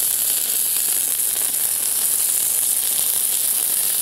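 A blackening-seasoned redfish fillet, scales side down, sizzling steadily in oil on a hot flat-top griddle.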